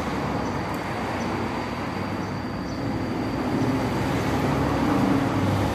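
Air-cooled Yamaha motorcycle engine running steadily while its carburetor is adjusted with a screwdriver, a little louder in the second half.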